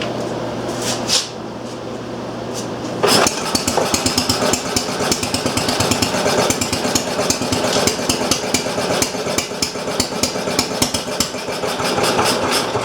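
Briggs & Stratton Model Q single-cylinder engine running, picking up speed about three seconds in as its idle is raised, then firing in a fast, even beat. The owner judges it to be running rich.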